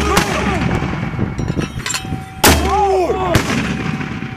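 Mortar firing: one sharp launch blast about two and a half seconds in. It follows the fading report of the previous round at the start, part of a six-round fire-for-effect mission.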